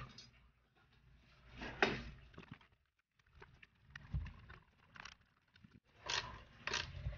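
Handling noises as a steel bracket is fitted to the back of a Yamaha Mio Sporty's plastic front fairing: scattered scrapes, light knocks and clicks of metal against plastic, with a short quiet pause about three seconds in.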